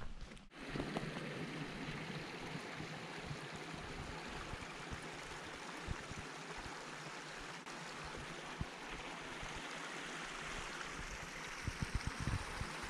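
Shallow mountain stream running over stones, a steady even rush of water, with a few low thumps near the end.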